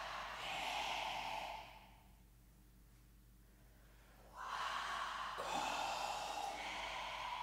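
A small group of teenagers making loud, breathy exhaled sounds together in unison, with no sung pitch, as part of a vocal performance; they stop for about two and a half seconds midway and then start again.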